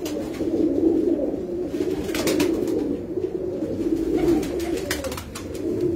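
A loft full of domestic pigeons cooing continuously, the many overlapping coos wavering up and down, with a few brief clicks over them.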